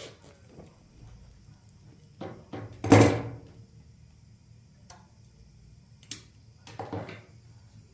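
A series of household knocks and clatters: two small ones, then a loud one about three seconds in, then sharp clicks and a short cluster of knocks near the end.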